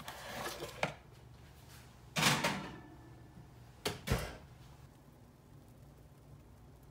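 A metal muffin tin being loaded into a kitchen range oven. There is a short scraping clatter about two seconds in, then the oven door shuts with two knocks a little later.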